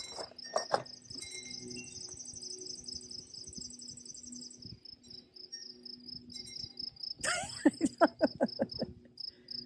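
Insects chirping outdoors in a steady, fast pulsed trill, with a second, higher trill joining in for a few seconds early on. About seven seconds in, a louder quick run of sweeping squeaks cuts across it.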